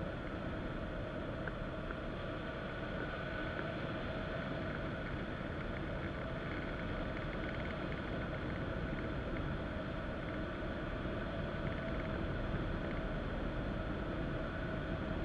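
Steady rush of wind over the microphone of a camera mounted on a hang glider's wing in free flight, a constant low buffeting.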